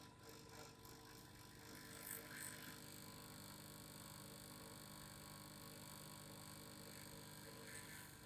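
Faint, steady vibrating hum holding several fixed pitches, with a few light clicks about two seconds in and again near the end.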